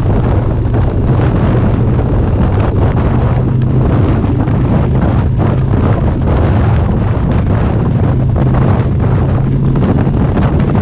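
Harley-Davidson V-twin engine running at a steady cruising speed, heard from the bike itself under heavy wind buffeting on the microphone. The engine holds an even low note with no revving.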